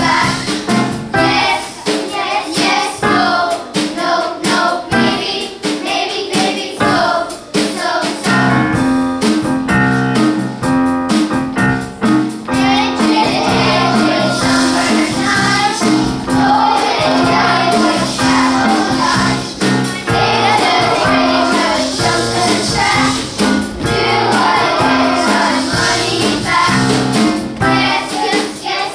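Children's choir singing a song in unison to an instrumental accompaniment with a steady beat.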